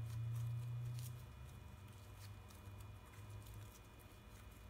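Glue-and-tetraborate slime being kneaded and squeezed between bare hands, giving faint sticky clicks and squishes. A low rumble is strongest in the first second, then fades.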